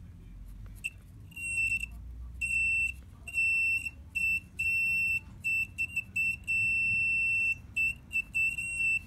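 An analog multimeter's continuity buzzer, clipped across a speaker-protection relay's contacts, gives a steady high beep that keeps cutting in and out irregularly in short and longer bursts. The contact is conducting only intermittently, which the owner takes for a poor, dirty relay contact.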